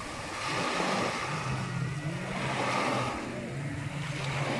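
Small waves washing up on a sandy shore. About a second and a half in, a watercraft engine comes in with a short rise in pitch and then runs at a steady low pitch.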